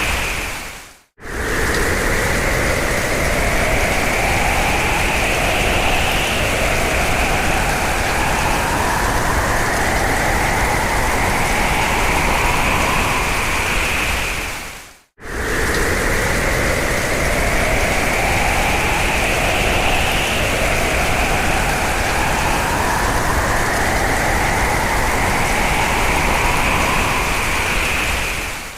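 Hurricane wind sound effect: a loud, dense rushing with howling gusts that rise in pitch. It cuts out briefly about a second in and again about halfway through, then the same stretch repeats.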